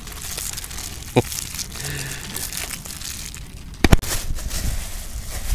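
Clear plastic bag crinkling as hands squeeze and knead the white dough fishing bait inside it. A short click comes about a second in, and a sharp double knock, the loudest sound, near four seconds in.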